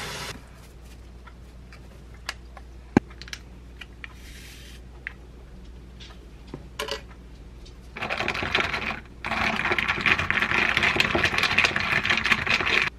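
Ice cubes clattering against a drinking glass as a drink is stirred with a straw: a short spell about eight seconds in, then a longer, loud, rapid rattle to near the end. Before that, a few scattered light clinks and taps.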